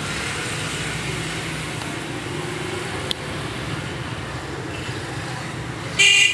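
Steady background street traffic noise, with a single click about three seconds in and a short, loud burst near the end.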